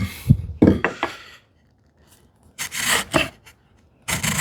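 Several short rubbing and scraping sounds, about four bursts with pauses between, as wood and hand tools are handled on a workbench.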